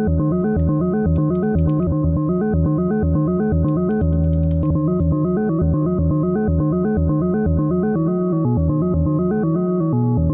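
Eurorack modular synthesizer playing a fast sequence of short pitched notes over a regular low pulse, driven by a René sequencer that is automatically switching states. The switching shifts the sequence length and creates shifting syncopation. A few faint clicks sound about a second in and again around four seconds in.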